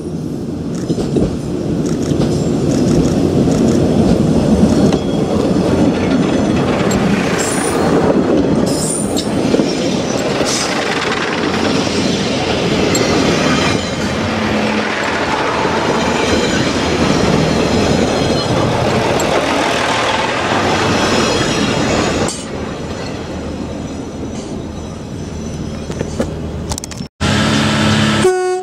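A diesel multiple unit runs slowly right over the track-level microphone, loud with the noise of its engine and wheels on the rails. It eases off about 22 seconds in, and near the end a second unit gives a short horn note.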